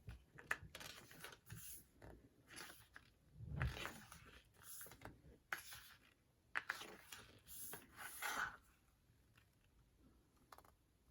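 Faint, scattered rustling, crinkling and small clicks of album inserts and cards being handled, with a soft thump about three and a half seconds in.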